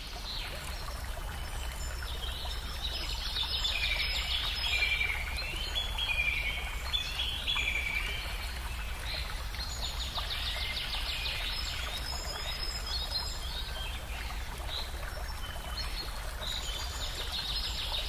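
Small birds chirping and singing in quick trills and falling notes, over a steady background hiss and low hum.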